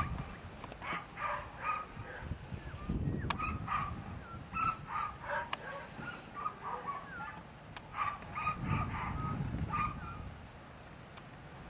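A dog yipping and barking in quick runs of short, high calls, again and again.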